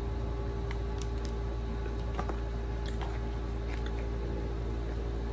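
A person biting into and chewing a Big Mac burger, with faint soft wet mouth clicks scattered through, over a steady low hum.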